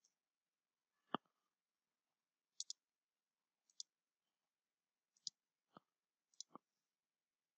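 Faint computer mouse clicks, scattered and irregular, including a quick double click about two and a half seconds in; otherwise near silence.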